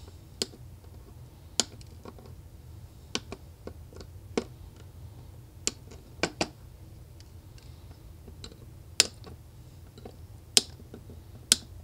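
Xuron flush cutters snipping the excess component leads off the back of a soldered circuit board: about a dozen sharp, irregularly spaced snips, the last few the loudest.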